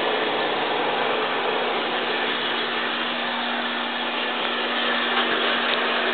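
Pistorius MN300 double miter saw running: a steady rushing noise with a low, steady hum through it and no separate cuts.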